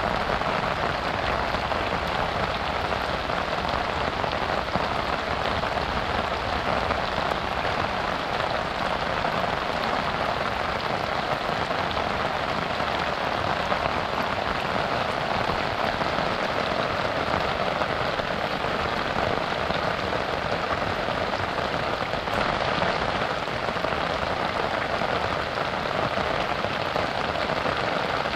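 Steady rain falling on a river's surface, an even wash of patter with no breaks or single drops standing out.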